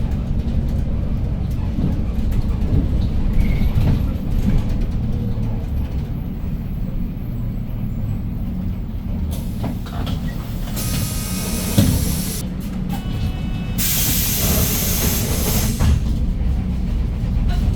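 Inside a Hyundai New Super Aerocity city bus with a C6AF CNG engine: steady low engine and road rumble while driving. Loud bursts of air hiss come from about halfway through for a few seconds, again a little later, with a single knock between them.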